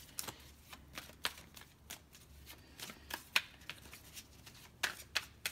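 A deck of tarot cards being shuffled by hand: a run of uneven, sharp card snaps, a few each second, the loudest a little past the middle.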